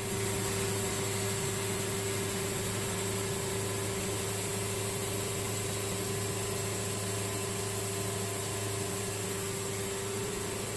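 Wood-Mizer sawmill's engine running steadily with the blade in gear, a constant hum with a faint hiss. The mill is being run to pump the blade-lube water pump dry so it won't freeze.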